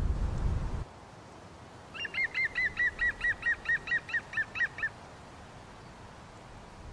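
A bird calling a rapid run of over a dozen short, down-hooked notes, about five a second, lasting about three seconds. Wind rumbles on the microphone for the first second.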